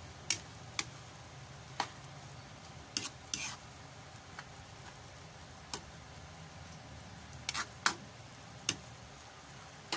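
Pancit bato noodles frying in a pan with a low steady sizzle, while a metal spatula stirs them, scraping and clicking against the pan every second or so.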